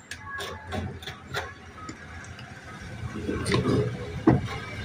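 Clicks and light knocks of plastic and metal parts as a Scorpio power window motor is taken apart by hand and its armature is drawn out of the housing. There are scattered clicks at first, then a busier clatter from about three seconds in, with one sharper knock near the end.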